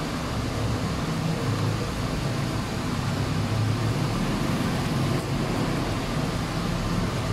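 Steady background rumble and hiss with no distinct events.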